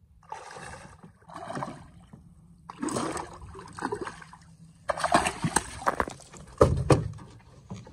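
A hooked redfish thrashing and splashing at the water's surface in several short bursts of splashing, with a louder thump near the end.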